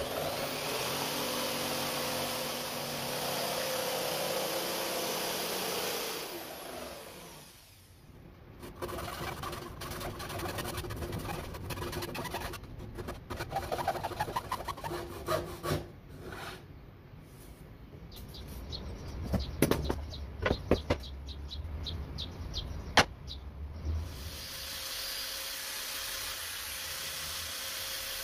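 Electric jigsaw running as it cuts into a wooden board for about six seconds, then winding down. Then a saw blade held in the hand rasping back and forth in the cut, and a run of sharp knocks. Near the end a disc sander runs steadily.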